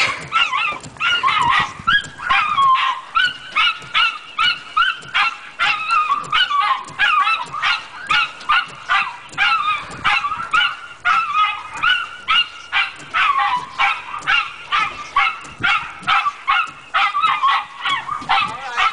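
Miniature schnauzer barking rapidly and without letup, about two to three sharp barks a second, set off by the car's moving windshield wipers.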